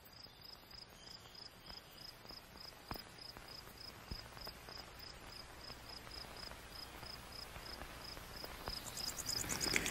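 Faint cricket chirping, a steady pulse about three times a second, with a low hiss that swells near the end.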